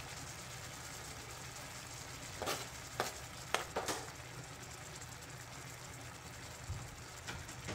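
Ground beef sizzling steadily in a stainless steel skillet, with a few light knocks about halfway through as more chopped onion is tipped into the pan.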